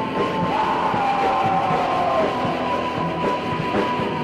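Raw black metal in a lo-fi, old-tape sound: a dense wall of distorted noise under a high, held melody line that slides down in pitch twice.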